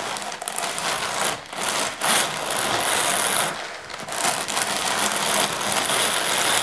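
Hand-cranked Walther drum carder running, its carding drums and crank gearing giving a steady mechanical whir with a thin high whine in places. The sound dips briefly twice.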